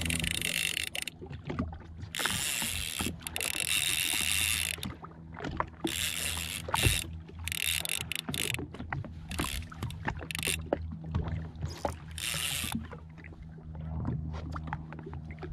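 Fishing reel being worked against a hooked fish, giving a ratcheting, whirring sound in repeated bursts of a second or two, over a low steady hum.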